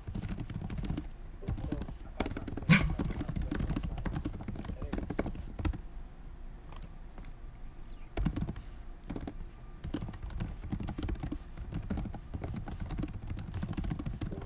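Typing on a computer keyboard: a fast, irregular run of key clicks, with one louder knock about three seconds in.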